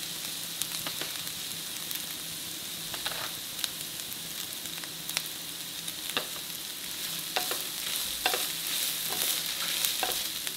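Shredded chicken and onions sizzling in a nonstick frying pan while a slotted spatula stirs them in, with scattered light clicks and scrapes of the spatula against the pan.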